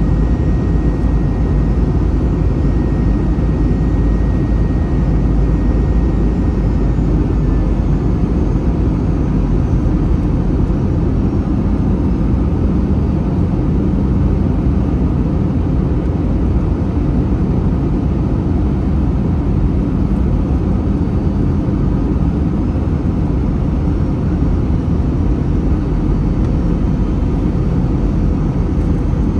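Airbus A321 in flight, heard from inside the cabin: a steady, loud drone of the jet engines and airflow, heaviest in the low rumble, with a faint high whine that fades out about seven seconds in.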